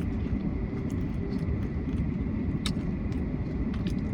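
Steady low road rumble inside a car's cabin, with scattered faint crunches of chewing nachos.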